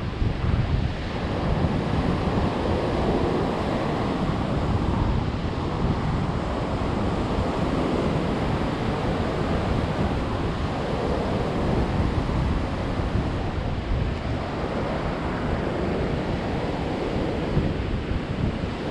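Ocean surf breaking and washing up a pebble beach in a steady rush, with wind buffeting the microphone.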